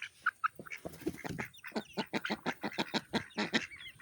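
A backyard flock of chickens and ducks calling while they feed: a dense run of short clucks and quacks, several a second.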